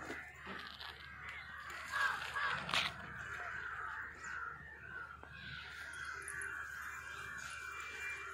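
Crows cawing, the loudest calls about two to three seconds in.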